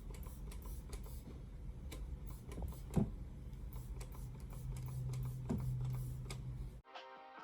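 Scattered soft clicks and handling noises over a low hum, from hands working on the wig hair. Near the end it cuts suddenly to guitar music.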